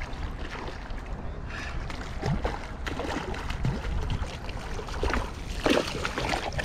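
Water splashing and lapping around a kayak, over a steady low rumble, with louder splashes about five to six seconds in.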